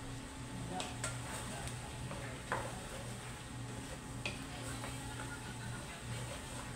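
A spoon stirring orange lentils and chopped vegetables in a stainless steel pot on the stove, with a soft sizzle and a few sharp clicks of the spoon against the pot, over a steady low hum.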